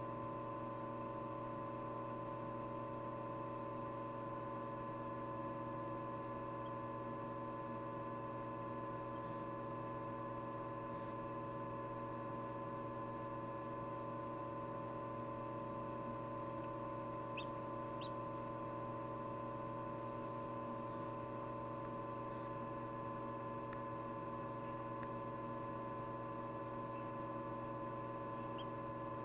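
Steady hum of an egg incubator's fan and heater, made of several fixed tones. A little past halfway, two faint high peeps sound, from a chick pipping its way out of its egg.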